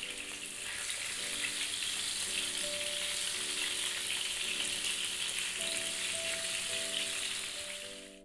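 Barracuda pieces sizzling steadily as they fry in hot coconut oil in a non-stick pan while they are turned over with a spatula. Soft background music with held notes plays underneath. The sizzle cuts off suddenly at the very end.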